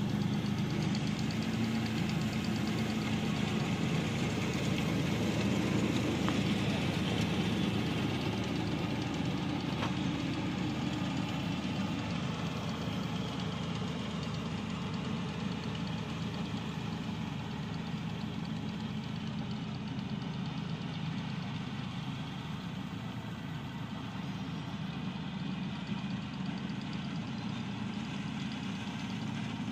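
ISEKI rice combine harvester's diesel engine running steadily as the machine works through the paddy, with the steady hum of its machinery; the sound eases slightly about halfway through.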